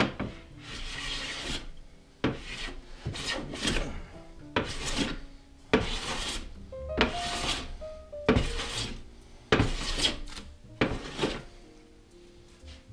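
Hand plane shaving along a wooden board in about nine separate strokes, each a rasping swish, taking down a ridge in the middle of the board to flatten it. Faint background music underneath.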